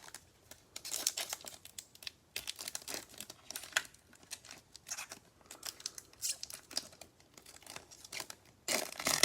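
Panini Prizm basketball card packs being torn open and their wrappers crinkled by hand: a string of uneven crackling rustles, loudest just before the end.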